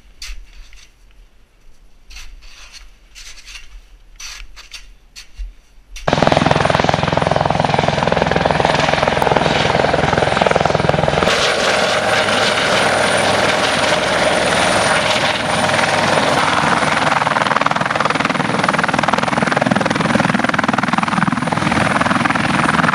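For the first few seconds, a metal blade scrapes and knocks at a wall of snow and ice. About six seconds in, a light turbine helicopter takes over, loud and steady, as it hovers in and sets down: rotor noise with a thin, steady high whine over it.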